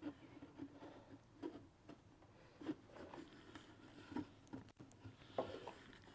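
Faint, irregular light taps and rubbing as the taped redwood staves and adjustable metal straps are handled and fitted, with one sharper click about three-quarters of the way through.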